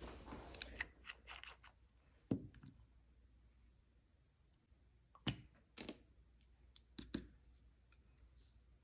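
Faint small clicks and taps of nail polish bottles and their caps being handled and set down on a desk, with a polish brush dabbing on a silicone palette: a flurry in the first couple of seconds, a knock, then a few sharper clicks later on.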